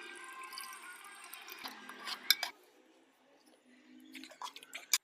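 Kitchen sounds of cooking korma: a faint hiss with a few sharp clinks of a utensil on cookware, a short near-silent pause midway, then more light clinks ending in one sharp clink.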